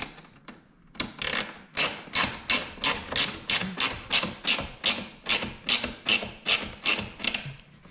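Hand screwdriver with a T30 Torx bit clicking in a steady rhythm, about three clicks a second, as it drives screws into a spoiler winglet.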